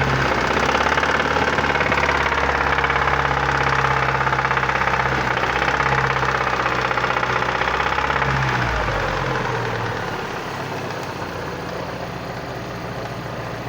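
Chevrolet Vectra Challenge engine running with the strange noise that is the owner's complaint. About two-thirds of the way through the sound changes and becomes quieter.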